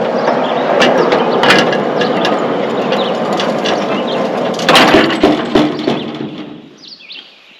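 Hand-cranked leveling jack on a sawmill track being wound, a dense rattling ratchet-and-gear clatter with many clicks. A few sharper knocks come about five seconds in, and the cranking fades out near the end.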